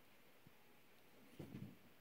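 Faint handling noise of a closed folding pocket knife turned in the hand: a light tick, then a short cluster of soft knocks and rubs about one and a half seconds in, over near-silent room tone.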